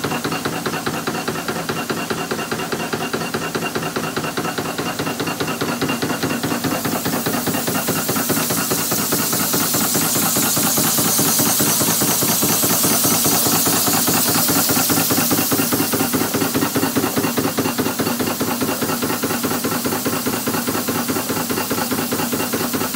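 Flywheel-driven mechanical punch press running continuously, its strokes making a rapid, evenly spaced clacking over a steady motor hum. A high hiss swells up through the middle.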